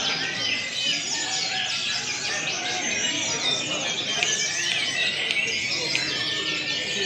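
Many caged brown-chested jungle flycatchers singing at once, a dense overlapping mix of rapid chirps, trills and whistles, with a murmur of people's voices underneath.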